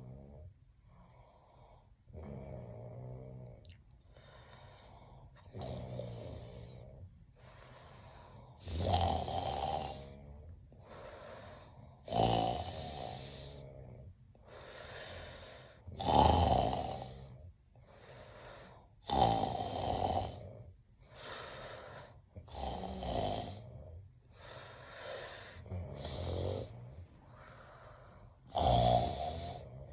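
A man snoring in his sleep: a loud snore on each breath, roughly every three to four seconds, with softer breathing sounds between. The snores get louder about nine seconds in.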